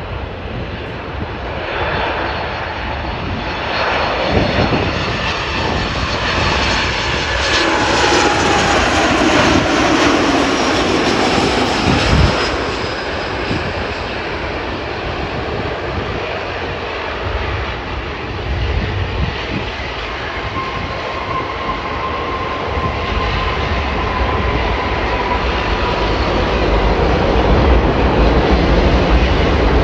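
Jet airliner's engines going past: a loud rumble and roar with a whine that falls in pitch as the aircraft passes, then a steadier whine later on.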